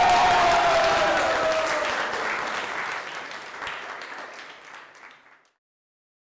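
A crowd of students and teachers clapping and cheering, with one long voiced cheer falling in pitch over the first couple of seconds. The applause fades away and stops about five and a half seconds in.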